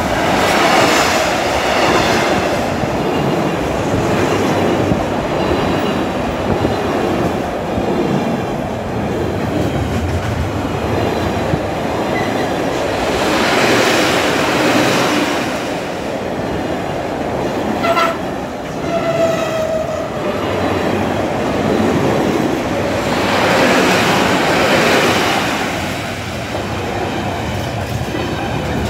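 Freightliner freight train hauled by Class 66 diesel locomotive 66514 passing close by: a continuous loud rumble and clatter of wagon wheels on the rails, swelling and easing as the wagons go past, with a sharp click about 18 seconds in.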